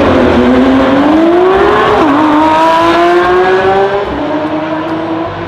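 Racing car engine revving, its pitch climbing, dipping sharply about two seconds in, then climbing again before it cuts off suddenly.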